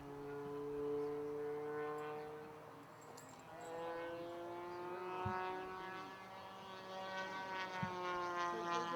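Engine of a radio-controlled model Focke-Wulf 190 warbird running in flight, a steady buzzing note whose pitch slides gently down and up a few times as it moves and the throttle changes.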